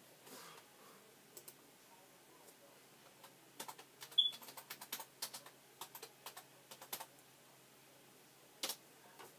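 Computer keyboard keys clicking in a quick run of keystrokes about three to seven seconds in, then one more keystroke near the end. A single brief high chirp sounds among the first keystrokes.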